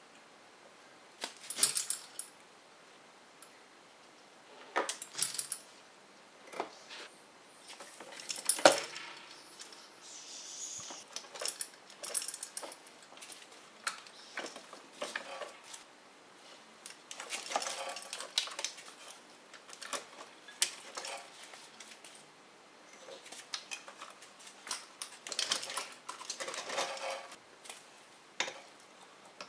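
Irregular metallic clinks and clatter as an engine is lowered on a hoist chain and worked into the engine bay, metal knocking against metal, with one sharp clank about nine seconds in.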